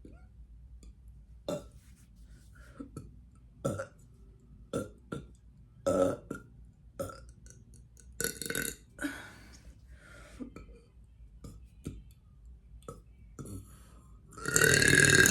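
A woman burping: a series of short burps, then a long, loud burp starting near the end.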